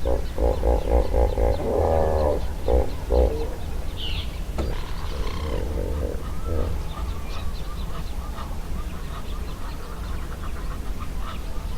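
Wild birds calling: a run of rapid, pulsed, cackling calls for the first three seconds or so, then higher chirps and twitters, over a steady low rumble.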